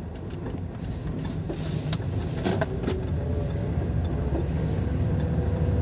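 Car engine and road noise heard from inside the cabin, getting gradually louder as the car accelerates along the lane, with a couple of sharp clicks about two and a half seconds in.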